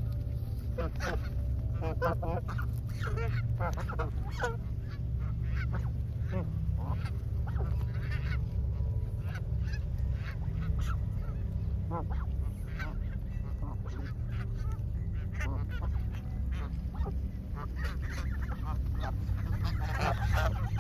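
Flock of Canada geese honking: many short calls overlapping irregularly, thickest at the start and again near the end, over a steady low rumble.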